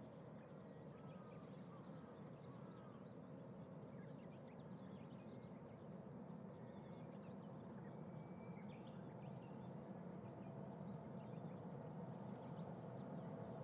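Faint, low, steady jet rumble from a Boeing 747-8F's four GEnx turbofans on landing approach, slowly growing louder as the aircraft nears.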